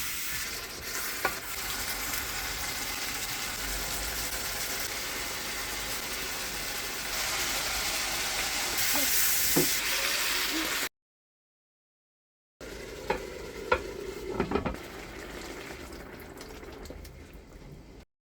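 Food sizzling as it fries in a hot pan, stirred with a utensil. The sizzle cuts out completely for over a second about two-thirds of the way through, then returns with a few sharp knocks of the utensil against the pan before fading.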